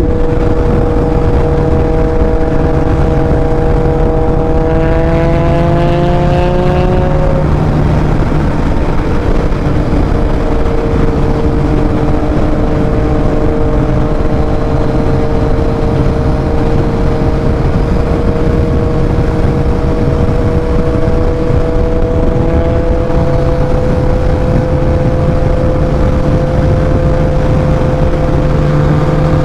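Yamaha MT-09's inline three-cylinder engine running at around 150 km/h, under heavy wind rumble on the microphone. The engine note rises between about four and seven seconds in, drops away, then holds steady and climbs slowly.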